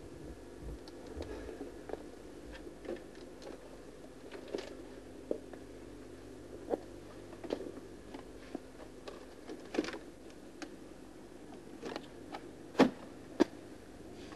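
Scattered light clicks and knocks of goods and packaging being handled on shop shelves, the loudest two close together near the end, over a faint steady hum.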